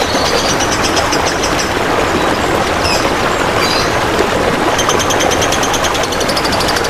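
Steady rush of trickling, splashing water, with a small songbird's rapid high-pitched trills over it that break off for a few seconds and start again about five seconds in.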